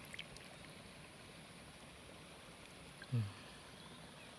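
Faint steady hiss of background noise, broken about three seconds in by one short vocal sound from a person, falling in pitch.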